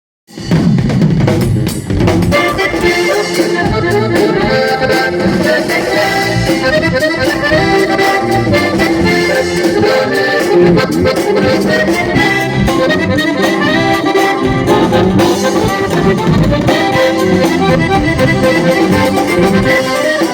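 Instrumental music led by an accordion, the introduction of a Latin American song, starting about half a second in.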